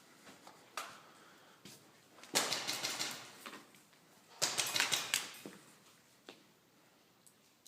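Two rapid bursts of airsoft gun fire, each about a second of fast clicking shots, the second starting about two seconds after the first, with a few single clicks between.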